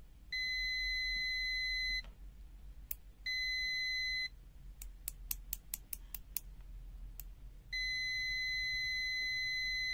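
Aneng M107 multimeter's continuity beeper sounding a steady high beep three times as the test-lead tips touch: about a second and a half, then a shorter one, then a longer one near the end. Between the second and third beeps comes a quick run of light clicks.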